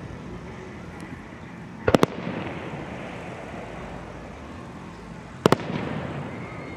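Fireworks shells bursting overhead: a quick double bang about two seconds in and another sharp bang about five and a half seconds in, each trailing off in a lingering rumble.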